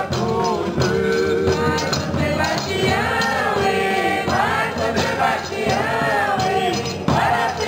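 A small group of voices singing a Folia de Reis devotional song to São Sebastião, in long drawn-out sung phrases, over a steady strummed guitar accompaniment.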